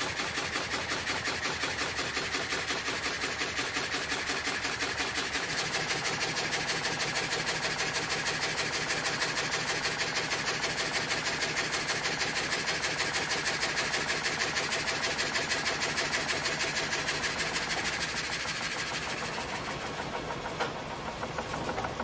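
Old vertical frame saw (gang saw) running and sawing a log, its blade frame moving up and down in a fast, even rhythm with a steady rasping hiss, while ribbed feed rollers push the log through. The sound eases off somewhat near the end.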